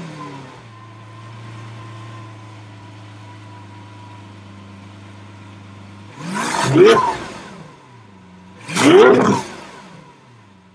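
Lamborghini Aventador's V12 idling steadily, then blipped twice, about six and nine seconds in, each rev rising sharply in pitch and dropping back to idle.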